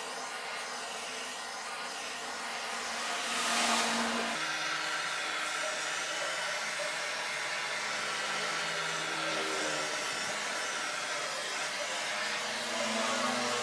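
Handheld butane torch on a gas canister burning with a steady hiss as its flame chars pallet wood, with a brief louder surge about four seconds in.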